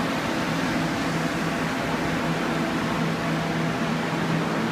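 Fans of water-damage drying equipment running with a steady whir and a low hum.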